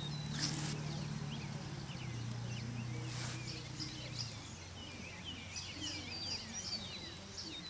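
Small birds chirping over and over, with a low steady hum underneath that stops about four seconds in.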